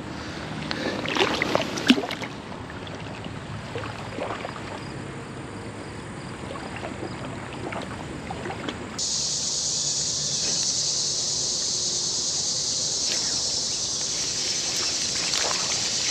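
Outdoor creek ambience with a steady low road-traffic hum and a few splashes and clicks in the first two seconds. About nine seconds in, a steady high-pitched insect drone starts abruptly and carries on.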